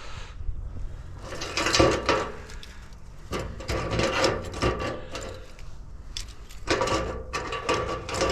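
Metal being cut on a scrap radiator: rasping cutting strokes in three bursts of a second or two each, as the ends are cut off to free the copper tubes.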